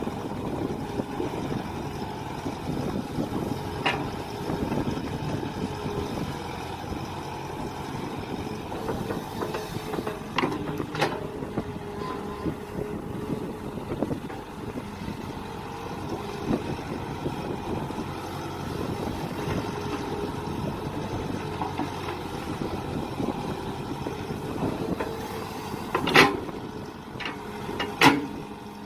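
Mini excavator running as it digs, its engine and hydraulics holding a steady note that shifts in pitch now and then. Several sharp knocks and clanks come through, the loudest two near the end.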